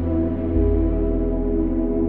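Ambient background music: sustained, drone-like tones with a deep bass note entering about half a second in.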